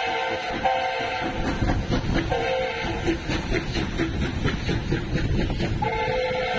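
P36 steam locomotive's whistle sounding in several short blasts of the same pitch over the running rumble of the train.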